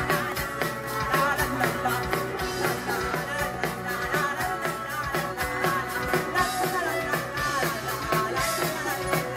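Live band playing upbeat rock-style music over a steady, fast drum beat.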